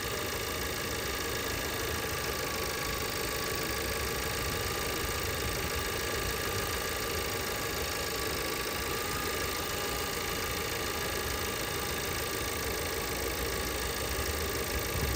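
2017 VW Passat's 1.8 turbo four-cylinder engine idling steadily. The engine has an intermittent random multi-cylinder misfire (cylinders 1 to 4) that sets in after it has run for a few minutes.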